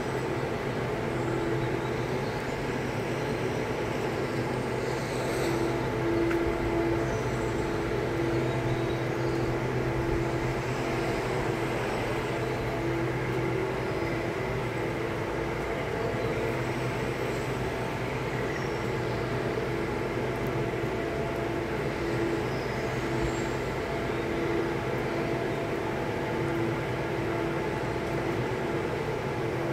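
Steady mechanical hum: an even drone holding a few constant tones, with no change in pitch.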